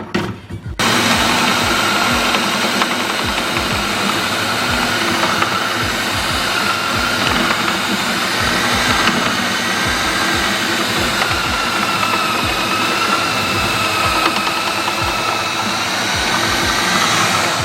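Power drill running under load, boring through the metal of a turbo downpipe to make the hole for a wideband O2 sensor bung. It runs as a steady, loud grinding whine that starts just under a second in, with its pitch wavering as the bit bites, and stops near the end.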